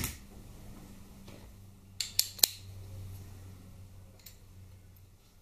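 Cover bolts being handled and clinked together: a knock at the start, then three sharp clicks in quick succession about two seconds in, and a faint click later. A low steady hum runs underneath.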